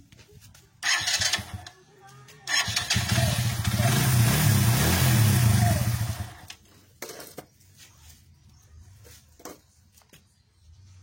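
KSR150 motorcycle's electric starter cranking the engine after a new bendix drive (starter clutch hub) is fitted: a short try about a second in, then a longer one from about two and a half seconds in that runs for about four seconds and stops abruptly.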